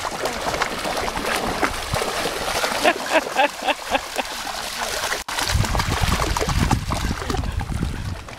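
Water splashing and sloshing as Groenendael dogs wade and paddle through shallow lake water close by. After a brief dropout about five seconds in, a low rumble joins the splashing.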